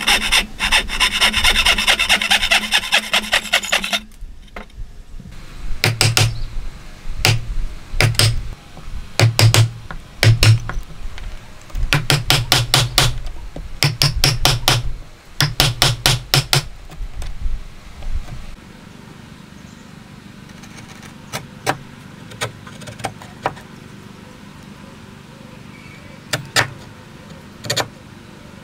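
A hand saw cuts into a hardwood board with quick, rasping strokes for about four seconds. Then a chisel is struck in short runs of sharp knocking blows, chopping out the waste between the joint's pins. The last ten seconds are quieter, with only a few light clicks as the chisel pares the wood by hand.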